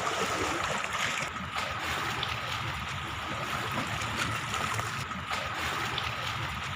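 Steady seaside wind and water noise, with a faint steady whine running through it.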